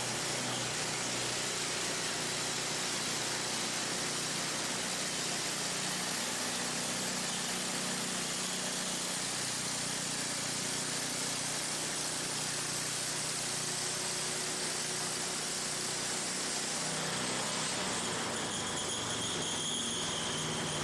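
Gas engine of a Harbor Freight portable band saw mill running steadily under load while its band blade saws lengthwise through an old barn beam. Near the end a higher whine comes in.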